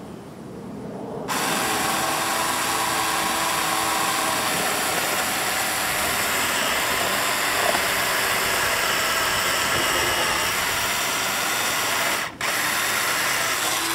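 Ryobi CS1800 18-volt cordless electric chainsaw with a 10-inch bar cutting across the top of a tree stump to level it. It starts abruptly about a second in and runs steadily, stops briefly near the end, then cuts again.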